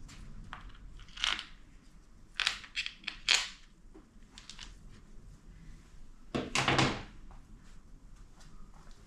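Metal transmission parts and hand tools clinking and knocking as they are handled: a quick run of sharp clinks, then a heavier clunk about two-thirds of the way in.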